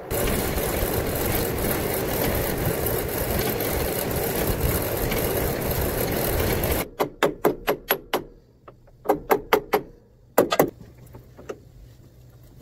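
Commercial laundry folding machine running, a loud steady mechanical rush from its conveyor and rollers, which stops abruptly about seven seconds in. Then come groups of sharp metallic clicks and knocks from hand-tool work at the conveyor's chain drive sprocket.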